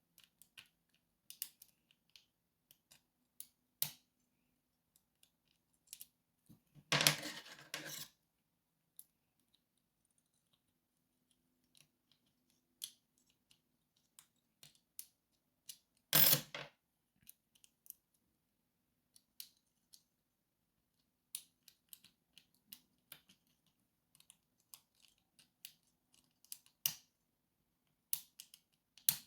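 Lock picking: faint, scattered metallic clicks and ticks of a pick and tension tool working the pins inside a lock. There are two louder scraping rattles, about 7 seconds and 16 seconds in.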